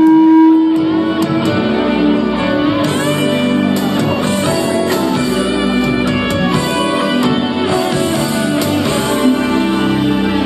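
Song accompaniment music with plucked, guitar-like notes over held tones, played for a small chorus; no clear singing stands out.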